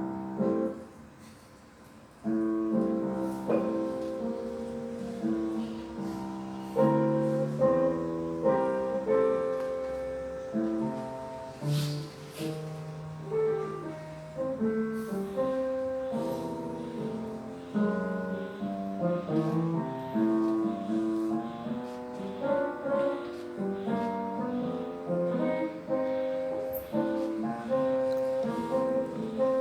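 A tune played on piano or keyboard, with the notes falling away about half a second in and starting again about two seconds in.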